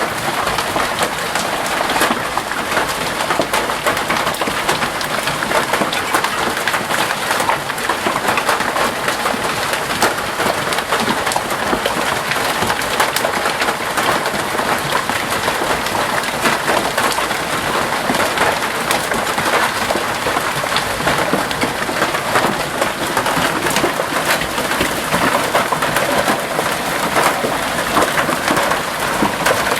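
Hailstones pelting down in a dense, steady clatter of countless small impacts.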